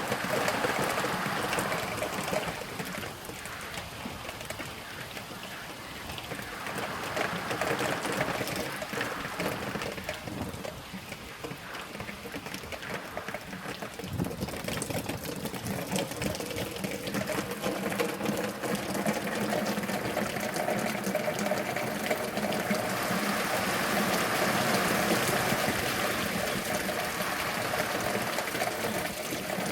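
Very heavy rain pouring down: a dense, steady hiss of falling water that eases a few seconds in and swells louder again in the second half.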